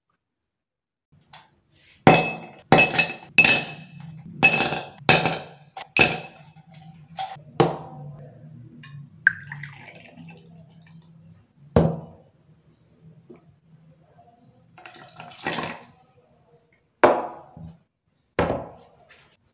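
Large ice cubes dropped one after another into an empty drinking glass: six sharp clinks with a glassy ring in quick succession. They are followed by liquid being poured and a few knocks of glass bottles and glasses set down.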